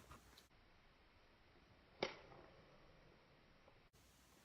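Near silence: faint room tone, with one short tap or click about two seconds in.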